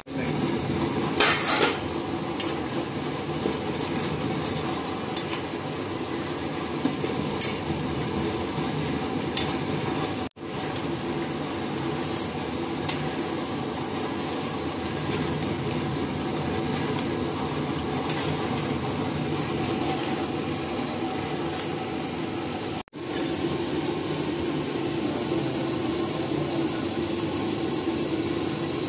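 Chicken curry sizzling in a metal kadhai while a metal spatula scrapes and clinks against the pan as it is stirred, with the loudest metal clanks about a second in.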